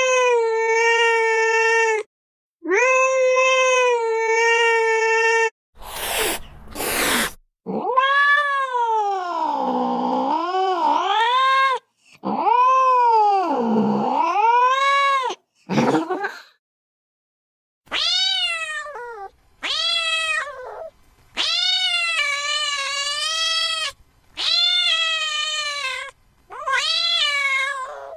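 Cat meowing and yowling. First come two long meows held at a level pitch, then a short harsh noisy burst. Next are two long drawn-out yowls that waver down and up in pitch, and near the end a run of shorter meows that rise and fall, about one every second and a half.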